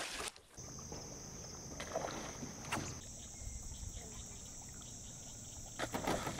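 A bass blowing up on a topwater lure: a loud splash of water about six seconds in. Before it, the lure is worked across the surface with a couple of smaller splashes. Insects buzz steadily in a high, even drone behind.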